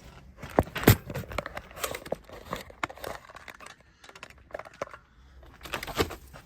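Irregular clicks, knocks and rattles of small metal parts and hand tools being handled, with sharper knocks about a second in and near the end.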